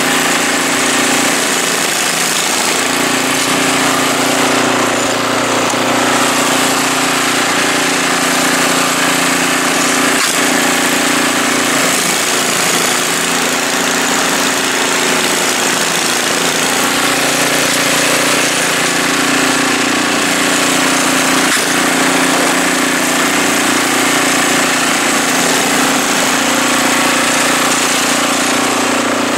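Simplicity SS822EX single-stage snowblower running steadily, its Briggs & Stratton four-stroke OHV engine holding an even pitch as the auger throws powder snow out of the chute.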